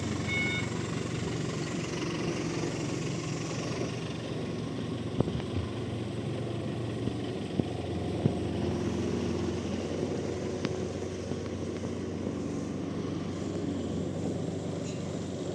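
A heavy vehicle's engine running steadily, its reversing beeper sounding for the first half second. A few sharp knocks come in the middle.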